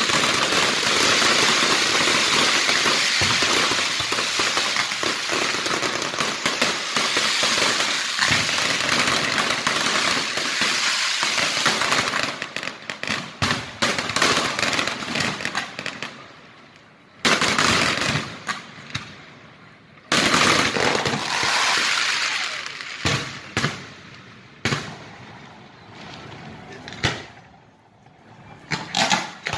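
Fireworks display: a dense, unbroken barrage of crackling and bangs for about the first twelve seconds, then thinning to separate bursts with short lulls between them.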